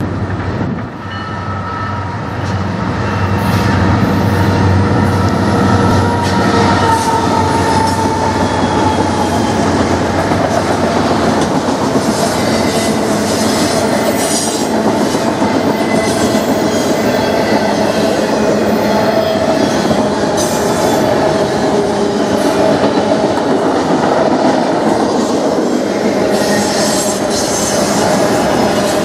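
Canadian National freight train passing close at speed. The diesel locomotives' engines drone low as the sound builds over the first few seconds. Then the autorack cars keep up a steady rumble and rattle, with long wheel squeal and wheels clicking over the rail joints.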